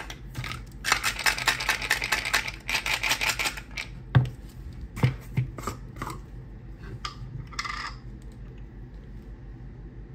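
Frozen cherry tomatoes rattling against the inside of a glass jar as it is shaken, a quick run of clicks lasting about three seconds. A few knocks follow as the jar is handled, then a short scrape as its plastic lid is twisted.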